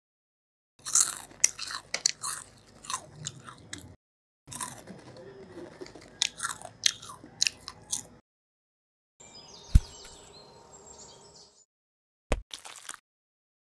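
Crisp cookies being bitten and crunched in two long runs of dry crackling, an eating sound effect. A single sharp thud about ten seconds in, and a brief crackle near the end.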